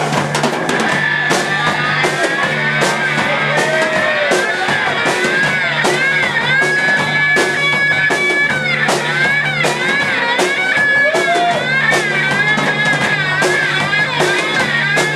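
Rock band playing live: drum kit beating out a steady rhythm under electric guitar, with a bending, sustained lead line on top.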